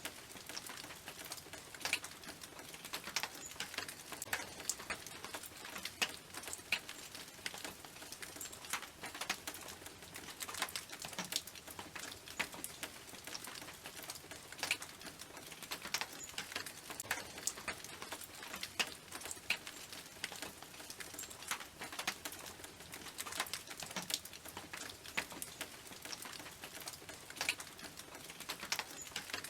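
Rain falling on a tin roof: big drops strike the metal as irregular sharp taps and pings over a steady patter of lighter rain.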